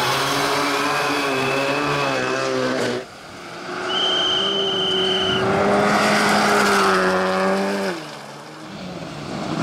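Rally car engines at high revs as the clips cut from car to car: a Renault Clio Rally3 rising and falling through the revs, then, after an abrupt cut about three seconds in, a Skoda Fabia rally car accelerating on gravel with a rising engine note and a high steady whine. Near the end another car is heard coming closer.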